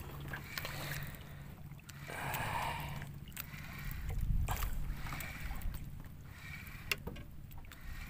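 Water lapping and sloshing against the hull of a small outrigger fishing boat, swelling twice, with a few light knocks near the end.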